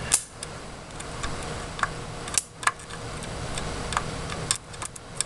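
Irregular sharp clicks and snaps, about a dozen, as a live lead from a 13.8 V, 23 A power supply is touched to a motherboard's components, over a steady low hiss.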